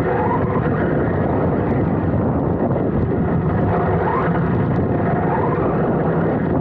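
Onboard sound of a Serpent SDX4 4wd electric RC buggy driving over grass: a dense, steady rumble from the chassis, drivetrain and tyres, with the motor whine rising in pitch a few times as the throttle comes on.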